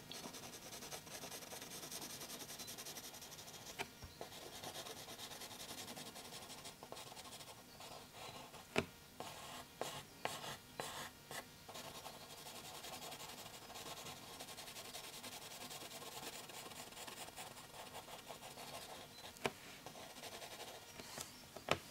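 Pencil scratching on paper in continuous shading strokes, faint, with a few light clicks in the middle and near the end.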